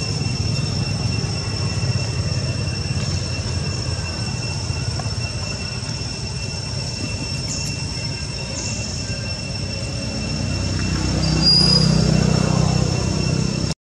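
Steady outdoor background noise: a constant high-pitched drone made of two steady tones over a low rumble. About eleven seconds in, a deeper hum swells, peaks, then eases off near the end.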